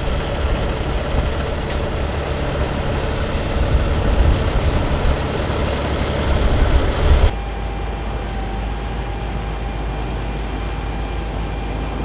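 Diesel semi-truck engine rumbling as the truck hauls a loaded flatbed trailer over dirt. About seven seconds in, the sound cuts abruptly to a steadier, slightly quieter engine drone with a faint steady whine.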